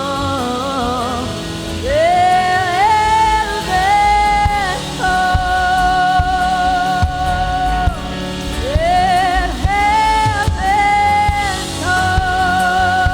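Worship music: a voice sings long, held notes with vibrato, sliding up into each one, over a band with drums and bass.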